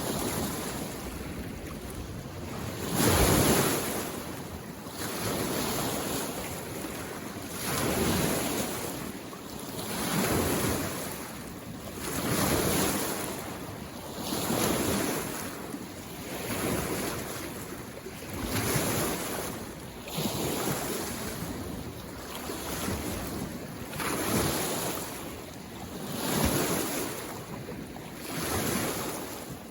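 Small waves on a mountain lake coming in, a rhythmic wash that swells about every two seconds, the strongest about three seconds in.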